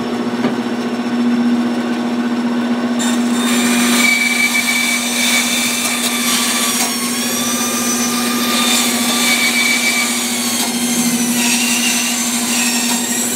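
Bandsaw running with a steady motor hum, then cutting into a thick chestnut board from about three seconds in, the blade giving a wavering high-pitched whine in the wood. The blade is dull and, in the sawyer's view, needs replacing.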